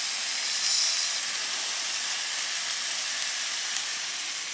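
Chicken meatballs frying in olive oil in a pot, a steady sizzle that swells briefly about a second in.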